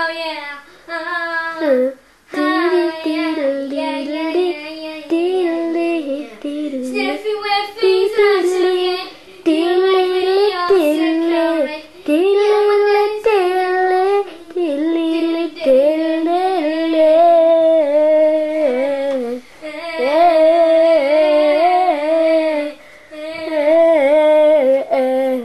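A child singing an unaccompanied song in a high voice, in sung phrases broken by short pauses.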